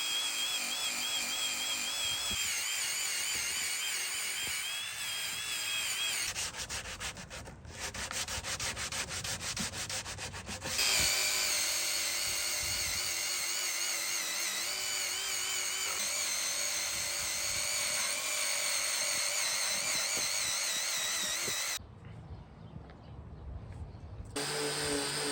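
Cordless grinder with a Hart paint removal disc stripping paint off wood: a scraping rasp under a motor whine that wavers in pitch as the load changes. It eases to a lighter, pulsing sound around the middle and drops out for about two seconds near the end.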